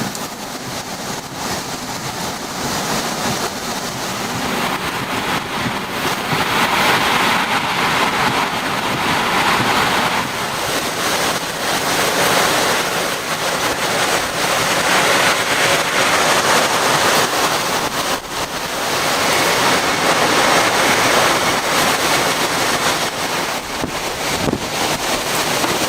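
Category 4 hurricane winds blowing hard, the rushing noise swelling and easing in long gusts several times.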